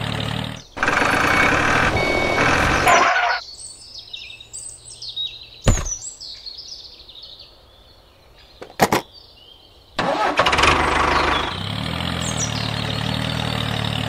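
Tractor engine running, louder for a couple of seconds, then cutting out about three seconds in. In the quiet that follows, birds chirp and there are two sharp clicks as the trolley hitch pin is fitted. The engine sound starts up again about ten seconds in.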